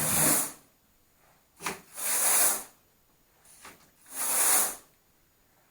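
Carpet rake dragged through carpet pile to stand the fibres up, in three swishing strokes about two seconds apart, with a light tap just before each of the later strokes.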